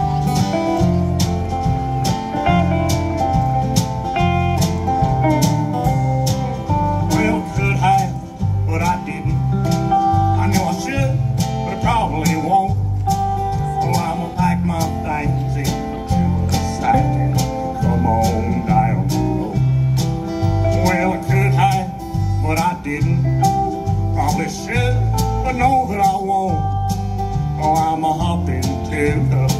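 Live country band playing with electric and acoustic guitars, pedal steel guitar and a drum kit keeping a steady beat.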